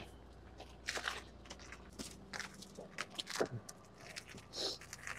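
Irregular clicks, scuffs and rustles of a rider getting onto a bicycle and pushing off, over a faint steady hum.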